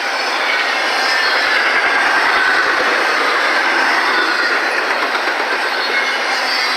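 Intermodal freight train rolling past: a steady, loud wheel-on-rail rumble and clatter with faint high wheel squeal.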